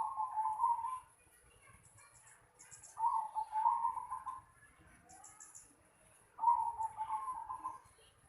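Zebra dove (perkutut) cooing: three phrases of quick, rolling coos, each about a second long and about three seconds apart. Faint high chirps from small birds sound between the phrases.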